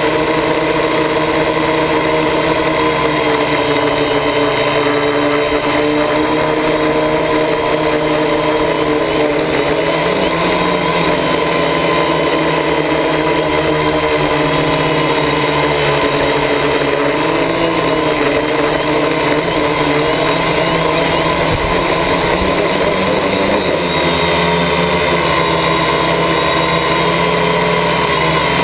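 Quadcopter's electric motors and propellers running steadily in flight, heard close up from the onboard camera: a loud, even whine of several overlapping tones that waver slightly as the motors adjust their speed.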